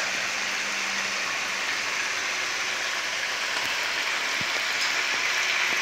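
Chicken pieces shallow-frying in a few spoons of hot oil in a kadai: a steady, even sizzle.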